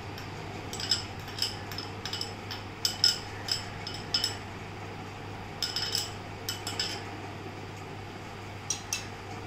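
Metal spoon clinking and scraping against glass bowls as chopped capsicum is scraped out, in three runs of quick light clinks with short pauses between.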